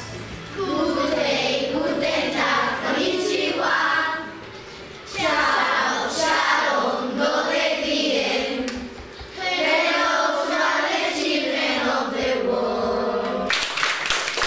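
A group of children singing a song together in phrases with short pauses between them. Near the end the singing stops and gives way to hand clapping.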